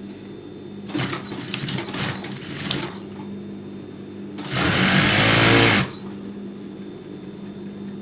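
Industrial lockstitch sewing machine stitching one short run of about a second and a half, a little past the middle, over a steady low hum. Before the run, fabric is handled and rustled under the presser foot.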